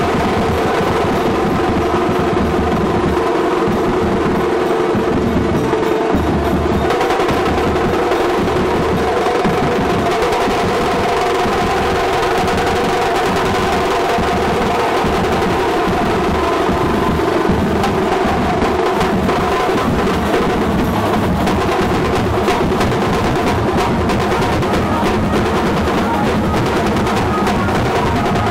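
Dhol barrel drums played loudly in a fast, continuous rhythm, with steady held tones sounding over the drumming.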